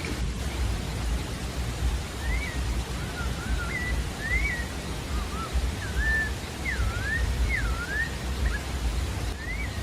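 Pale-breasted thrush singing a run of short whistled phrases, some rising and some falling, over a steady hiss and low rumble.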